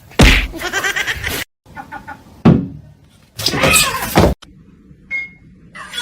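Two loud, wavering animal cries, the second starting about three seconds after the first, with a sharp knock between them.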